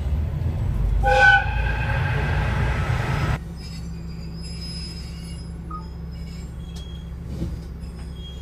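Diesel railcar running with a steady rumble; its horn sounds one short blast about a second in. A little after three seconds the noise drops abruptly to a quieter, steady engine hum.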